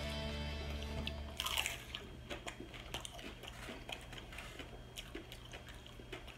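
A person biting and chewing a crisp tostada, with scattered small crunches and wet mouth clicks.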